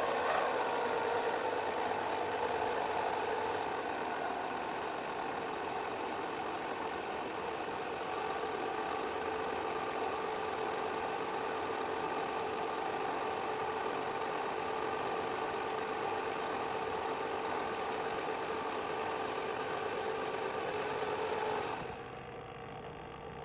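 RC model boat's DC 775 electric drive motor running under way with a steady whine, heard from on board. Near the end the whine drops and quietens.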